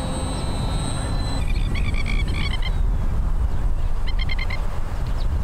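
Wind rumbling on the microphone, with the thin high whine of a model plane's brushless electric motor that stops about a second and a half in. Then two short bursts of rapid chirping calls from an animal.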